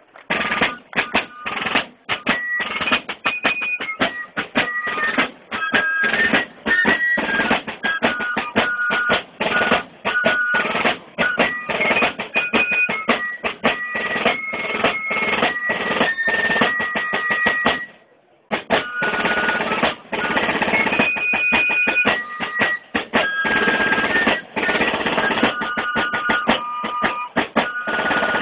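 Fife and drum corps playing: fifes carry a high, stepping melody over a rope-tension snare drum beating out rolls and strokes. The music stops for a moment about two-thirds of the way through, then a new tune starts.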